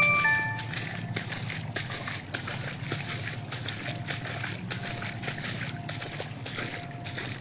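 Shallow floodwater running fast across a road, with sloshing and splashing as someone moves through it. A short chime of a few tones sounds right at the start.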